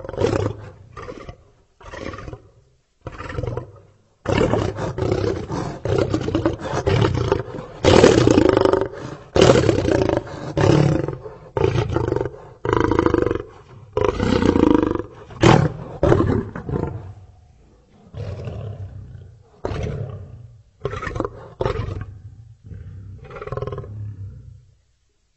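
Lion roaring bout: a few short calls, then a run of full, deep roars that are loudest about eight to ten seconds in, tapering into a series of shorter grunts separated by pauses.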